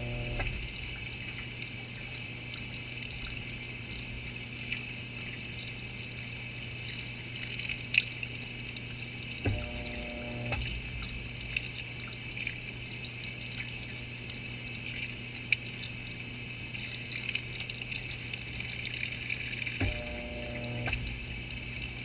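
Whirlpool WTW4900BW impeller washing machine mid-wash, heard from inside the tub: water and clothes sloshing and churning over a steady low hum, with scattered light knocks. A short humming tone comes in three times, about ten seconds apart.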